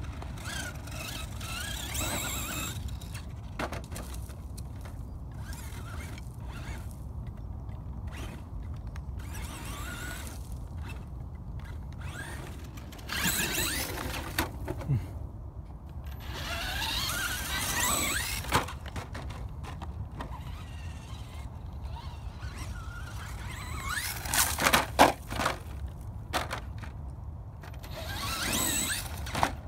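Brushless electric motor of an RC Slash 2WD monster truck whining in repeated bursts, its pitch rising as the truck accelerates between jumps. A cluster of sharp knocks and clatter about 25 seconds in.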